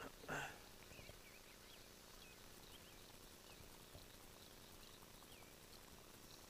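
Near silence with many faint, quick high chirps scattered throughout, like small birds, and one brief louder sound about half a second in.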